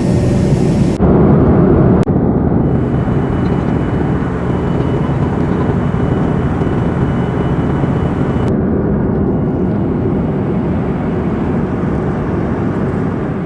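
Steady, loud turbofan engine and airflow noise of an Embraer ERJ-145 regional jet heard inside the passenger cabin, with sudden small shifts in the sound at about a second, two seconds and eight seconds in.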